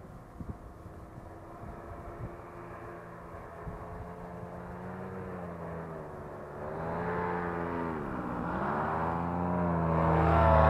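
Paramotor engine running steadily. About eight seconds in its pitch dips and rises again, then it grows louder toward the end as a paramotor launches close by.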